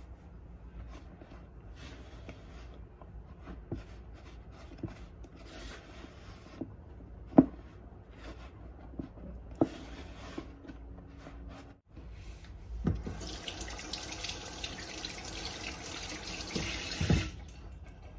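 Rubber spatula mixing naan dough in a bowl, with scattered knocks and taps against the bowl, the sharpest about seven seconds in. After a brief break, a tap runs for about four seconds.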